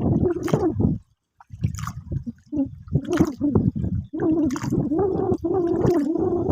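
Water sloshing and gurgling in irregular bursts, with a short break about a second in and a steadier, bubbling stretch near the end.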